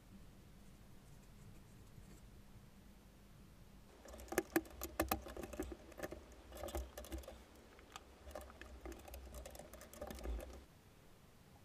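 Irregular clicking and tapping of small hard objects being handled, with low handling thumps, starting about four seconds in after a stretch of faint hum.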